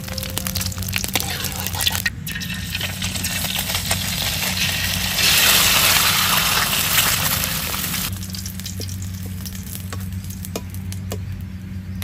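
Eggs frying in hot oil in a steel wok: a steady sizzle dotted with popping spatters, swelling to a loud hiss when a fresh raw egg goes into the oil about five seconds in, then easing off.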